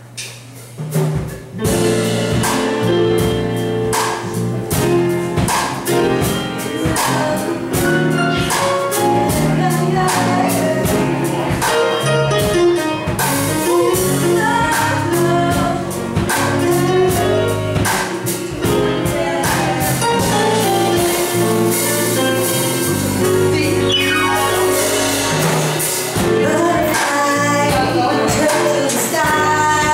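Live soul band: a woman sings into a microphone over grand piano, electric guitar and drums, picking up after a short lull at the very start.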